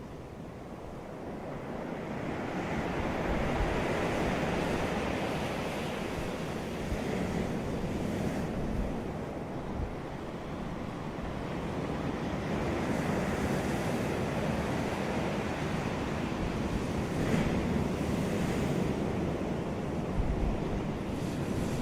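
Ocean surf breaking on a beach, a steady wash of waves that swells and eases over several seconds, with some wind on the microphone.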